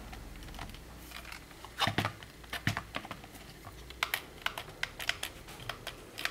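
Small tactile push-button switches clicking under the orange 3D-printed button caps of a controller case, pressed one after another. A few scattered clicks come in the first half, then a quicker, irregular run of them from about four seconds in.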